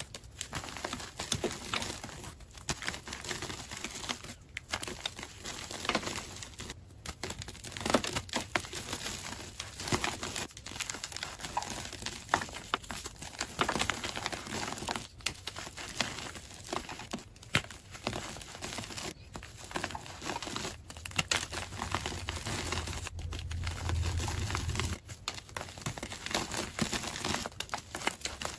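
Hand squeezing and crushing soft blocks of gym chalk: a dense, irregular run of crunching and crackling as the chalk crumbles and falls apart in the fist. A low hum comes in for a few seconds in the last third.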